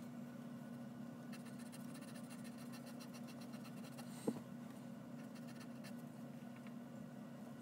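Graphite pencil scratching faintly across paper in short sketching strokes, over a steady low hum. A single sharp click about four seconds in.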